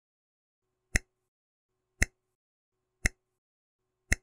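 Countdown timer tick sound effect: a sharp, short click once a second, four times, starting about a second in.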